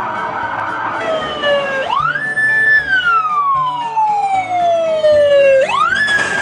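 Police-style wail siren sounding: each cycle rises quickly, holds briefly at the top and then falls slowly over about three seconds, with a second rise near the end.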